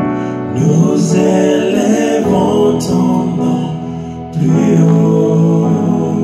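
A man singing a gospel worship song in Lingala into a microphone, accompanying himself with sustained chords on a keyboard. The singing comes in two phrases, the second beginning about four seconds in.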